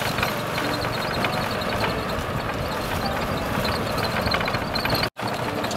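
Motorbike-pulled tuk-tuk under way: steady engine and road noise heard from the passenger carriage, briefly cut out just after five seconds.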